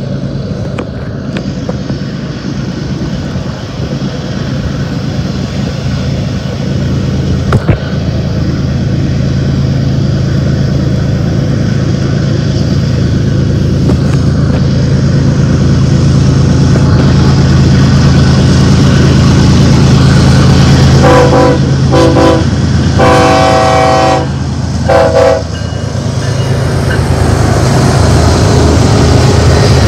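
BNSF diesel freight locomotive approaching with its low engine drone growing steadily louder. About three quarters of the way through, its air horn sounds four blasts, the third one long.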